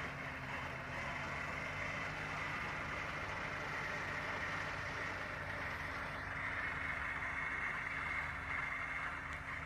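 Kubota tractor driving by with its front-mounted Kuhn disc mower running as it cuts Italian ryegrass: a steady engine drone with a high steady whine over it.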